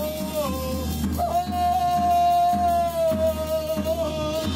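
Live acoustic music: a voice holds one long high note, rising into it about a second in, over a steady drum beat, strings struck with beaters, and a low bowed-string drone.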